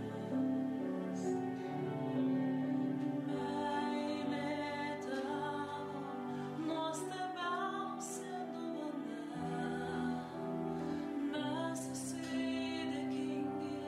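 Music of a Catholic hymn: sustained chords over a bass line, with a melody line above.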